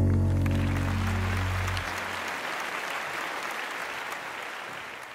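Audience applauding as the band's last held chord rings out and dies away about two seconds in; the applause then fades steadily.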